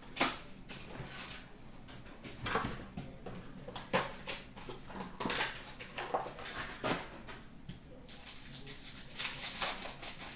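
Hockey card packs being handled and opened by hand: crinkling and rustling of the pack wrappers and cardboard, with irregular clicks and taps, and a longer stretch of rustling near the end.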